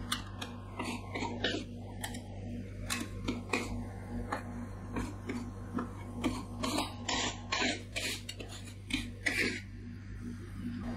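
Metal spatulas scraping and tapping on a sheet of frozen coffee ice cream on a stainless steel rolled-ice-cream cold plate, in short irregular strokes, over a steady low hum.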